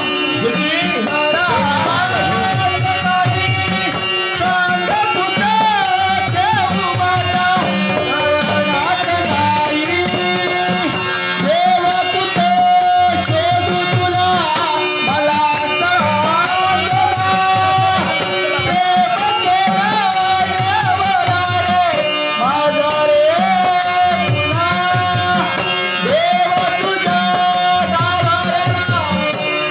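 Marathi devotional song performed live: a male voice sings a gliding melody over harmonium and a barrel drum, with a high jingling percussion beat running throughout.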